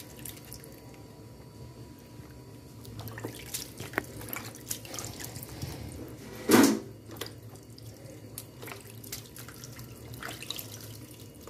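Hands rinsing and rubbing soaked dried fish in a basin of water, giving light splashing and dripping, with one louder splash about six and a half seconds in.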